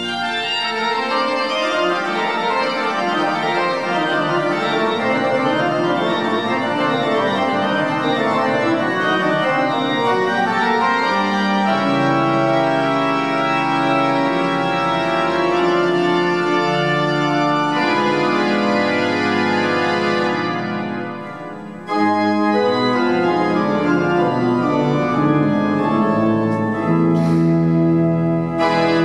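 Pipe organ playing a dense passage of full chords with moving lines. About 21 seconds in, the music breaks off briefly and dies away in the church's reverberation, then restarts with full chords.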